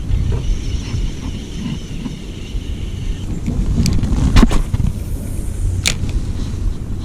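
Low rumble of wind buffeting the microphone, with a few sharp clicks or knocks about four and six seconds in.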